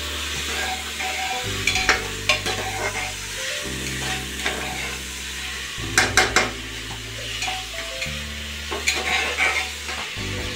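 A metal spoon stirring and scraping bottle gourd and chana dal in an open aluminium pressure cooker while the food sizzles. Sharp clinks of metal on the pot come about 2 seconds in and again around 6 and 9 seconds.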